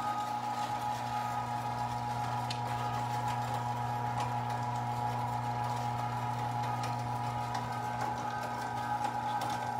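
A 1 hp Carnivore electric meat grinder running steadily under load, grinding raw meat and bone with a constant motor hum and whine. A few faint clicks come through over the hum.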